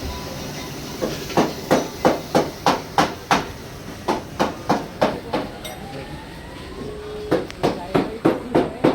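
Hammer striking metal over and over, about three blows a second, in two runs with a short pause near the middle.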